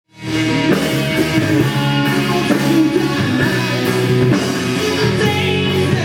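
Live rock music: a man singing into a microphone over electric guitar and band.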